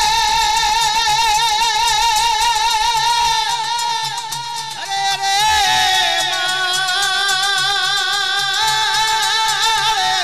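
Gujarati jagar devotional folk music: a melody with strong vibrato held on long notes, shifting pitch about halfway through, over a steady drum beat.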